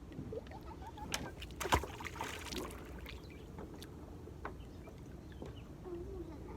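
Kayak paddling: water splashes and knocks of the paddle, the loudest a sharp knock a little under two seconds in followed by a second of splashing, over a steady low rumble.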